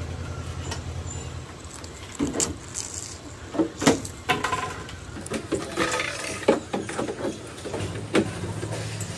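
A low, steady hum that cuts off about a second and a half in and comes back near the end, with scattered knocks and clatters in between.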